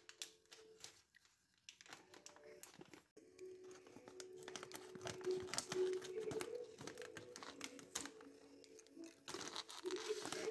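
Crinkling and crackling of a foil-lined plastic tea pouch as it is handled and cut open with scissors: many short, sharp crackles.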